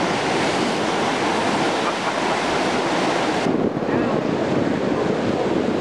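Seawater rushing and breaking along the hull of a surfaced submarine under way, with wind buffeting the microphone. The high hiss drops away abruptly about three and a half seconds in, leaving a lower, steady rush of water.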